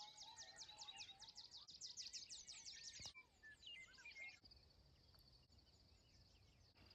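Faint birdsong: a fast run of high chirps, each sweeping down in pitch, lasting about three seconds, then a few scattered calls that die out. A faint steady high buzz, like an insect, remains afterwards.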